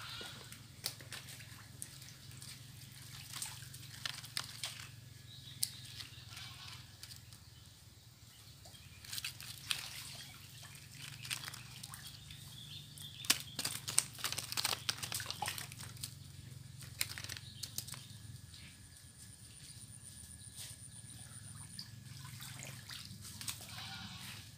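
Muddy water sloshing and splashing as a plastic basket scoops it up and throws it out, bailing the last water from a drained fish pond. The splashes come irregularly, busiest around nine to ten seconds and again around thirteen to fifteen seconds in.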